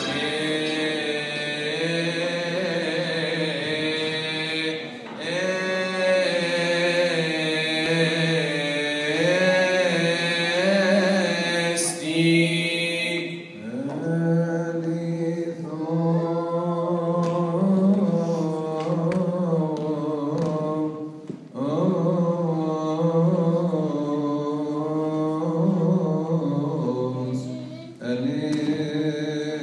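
Many male voices chanting a Coptic liturgical hymn together, in long held phrases with short breaks between them, about halfway through and again near the end.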